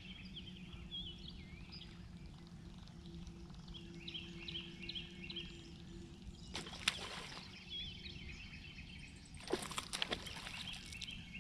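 Birds chirping repeatedly over a low steady hum, with two short noisy bursts about seven and ten seconds in.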